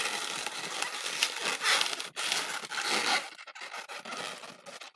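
Inflated 260 latex twisting balloon rubbing against itself and the hands as it is twisted into bubbles, in uneven spurts that die down after about three seconds.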